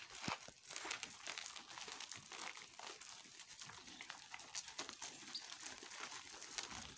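Cattle milling about on dry dirt: faint rustling with scattered light clicks and knocks of hooves and bodies moving.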